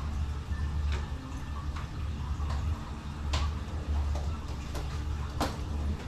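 Crisp roasted-pig skin (lechon) cracking under a carving knife: a string of separate sharp crackles and snaps at irregular intervals, over a steady low hum.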